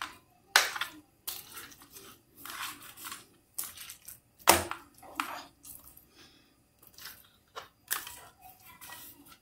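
Hands rubbing seasoning into raw pork chops and turning and stacking them on an aluminium tray: irregular wet slaps and rustles of meat against the metal, with sharper knocks about half a second and four and a half seconds in.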